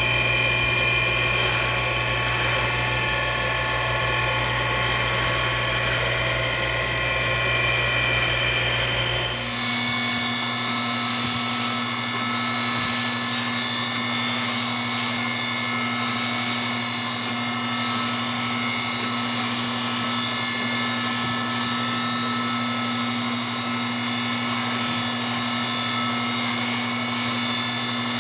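Surface grinder running, its abrasive wheel grinding small steel ball-nut spacers held on a magnetic chuck: a steady machine sound with several held tones. About nine and a half seconds in the sound shifts, the deepest hum dropping out and a new, lower tone coming in.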